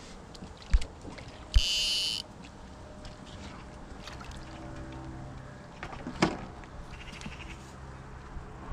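Carp splashing at the water's surface as it is drawn into a landing net, with scattered short splashes throughout. Two sharp knocks come in the first two seconds, then a loud, high electronic buzzing tone lasting about half a second.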